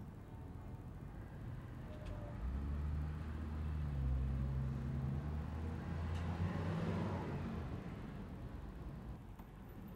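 A motor vehicle driving past on the street: its engine rises from about two seconds in, goes by with a swell of tyre and road noise, and fades away near the end.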